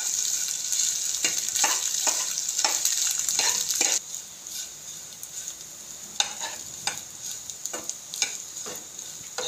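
Scrambled eggs sizzling in oil in a nonstick pan while a spatula chops and stirs them into small pieces, with repeated scrapes and taps on the pan. About four seconds in, the sizzle drops away abruptly, leaving a quieter hiss and a few scrapes.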